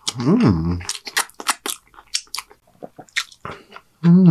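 Close-miked chewing: a person eating with a run of short crisp mouth clicks and crunches. A short hummed 'mmm' that rises and falls comes right at the start, and another begins near the end.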